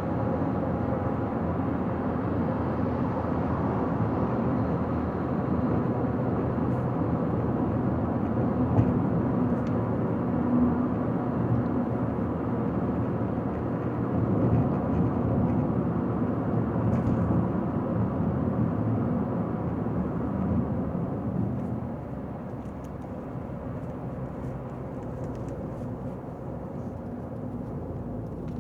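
A car driving on a highway: steady tyre and engine rumble that becomes quieter about 22 seconds in, as the car eases off.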